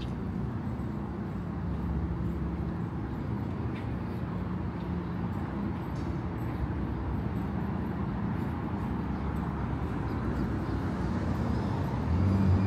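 City street traffic: a steady low rumble of passing vehicles. Near the end the rumble grows louder as a vehicle comes close, with a faint high whine over it.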